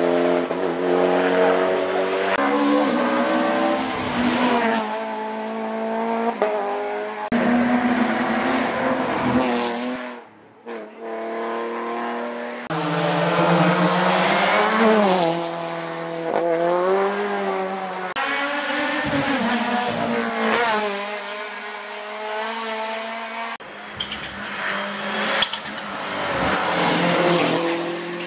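Hillclimb race cars accelerating hard uphill past the spectators, first a Mitsubishi Lancer Evo X, then a Mini Cooper S from about ten seconds in. The engine pitch climbs and drops through gear changes, and the sound changes abruptly several times.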